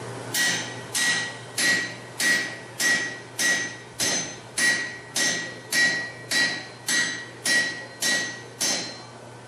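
Hammer blows on a handled hot-cut chisel, steel on steel, cutting through red-hot bar stock on an anvil. Fifteen even strikes, about one every 0.6 s, each with a bright metallic ring, stopping shortly before the end.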